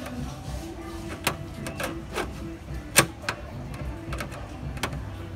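Irregular clicks and knocks, the loudest about three seconds in, over a low steady hum.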